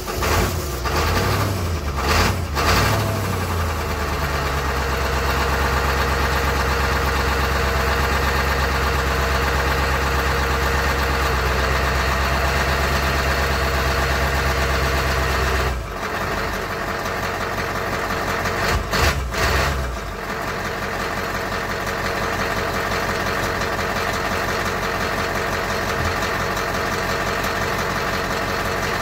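Ford F450 wrecker's 7.3 IDI V8 diesel running through its exhaust stacks just after a cold start. It is uneven for the first few seconds, then settles into a steady fast idle. About halfway through the note drops, and after two short blips it settles into a lower, even idle.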